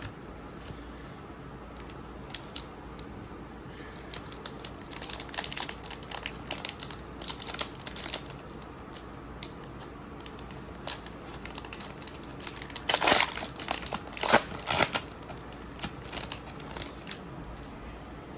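Crinkling and rustling of Magic: The Gathering cards and their foil booster-pack wrapper being handled, in irregular clusters of crackles. The loudest cluster comes about 13 to 15 seconds in.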